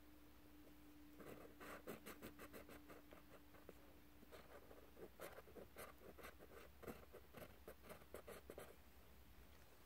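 Pencil scratching on paper in quick, short drawing strokes, faint, starting about a second in and stopping shortly before the end. A faint steady hum sits under it for the first half.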